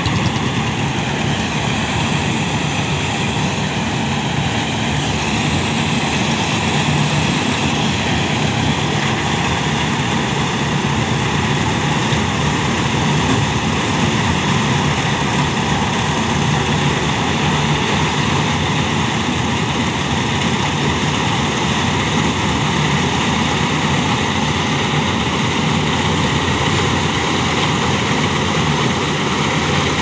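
Malkit combine harvester running steadily at working speed while its unloading auger discharges threshed rice, with a tractor engine running alongside. The sound is a continuous, even machine noise.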